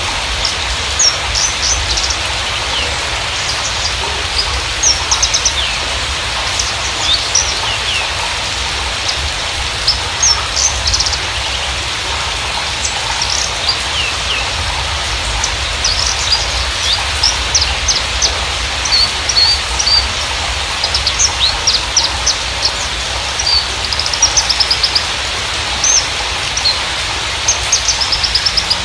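Javan bushlark (Mirafra javanica parva) singing: a quick, continuous string of short, sharp high chirps and slurred notes over a steady hiss.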